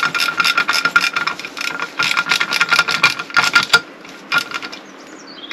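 Ratchet clicking rapidly in short runs as screws are driven down evenly into the engine casing, stopping about a second and a half before the end.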